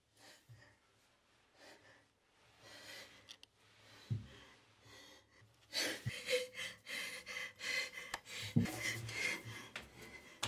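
Mostly quiet for the first half, with a couple of soft knocks. From a little past halfway, a person breathes fast and hard, gasping in quick short breaths.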